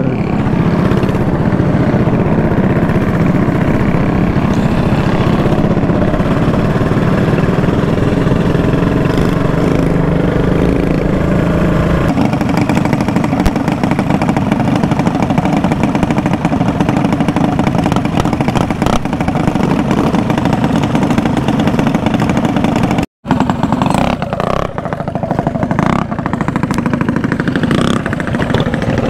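Mini bike engines running as a group rides along, loud and continuous. The engine note settles lower about twelve seconds in, and the sound cuts out for an instant about two-thirds of the way through.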